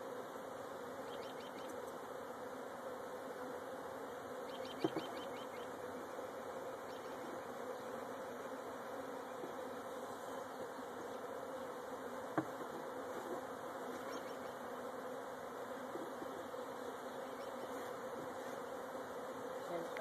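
A large mass of honeybees buzzing steadily, a disturbed swarm being shaken from its box into a top-bar hive. Two sharp knocks, about five and twelve seconds in.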